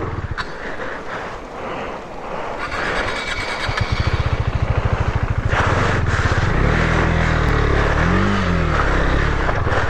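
Motorcycle engine revving while the bike is ridden through a stream crossing on a rough track, the revs rising and falling. It gets louder from about halfway through.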